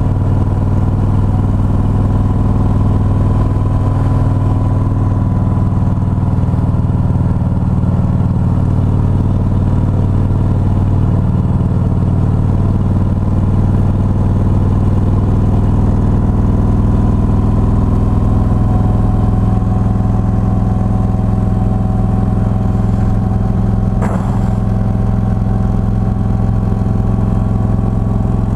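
A vehicle's engine running steadily at cruising speed, a constant low hum with small shifts in pitch, and one brief click about three-quarters of the way through.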